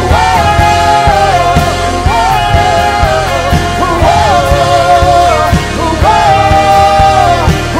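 Live worship band playing, with a steady drum beat under a held, wordless melody in phrases of about two seconds, each sliding at its end.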